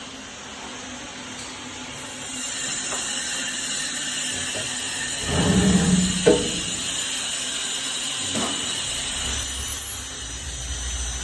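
Small service lift (food dumbwaiter) running: a steady high whine from its drive, with a louder clunk about six seconds in and a shorter knock near ten seconds, then a low rumble toward the end.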